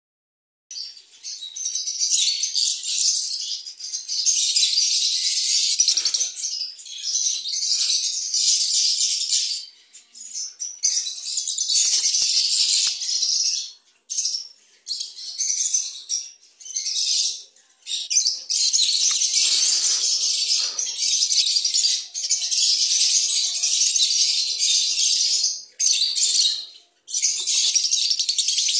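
A group of peach-faced lovebirds chattering shrilly and almost without a break, in long stretches separated by a few short pauses.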